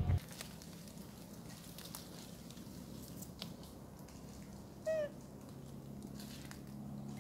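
A single short squeak from a long-tailed macaque, about five seconds in, amid faint rustles and small clicks from the monkeys. A low steady hum starts soon after the squeak.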